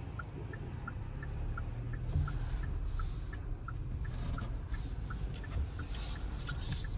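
Inside a moving Hyundai: a steady low rumble of road and engine noise, with the turn-signal indicator ticking at an even pace of about three ticks a second. Brief hissy swells come and go twice.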